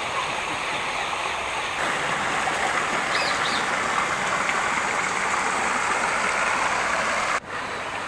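Small waterfall pouring over rocks into a pond: a steady rush and splash of running water, growing fuller about two seconds in and dropping out abruptly for a moment near the end.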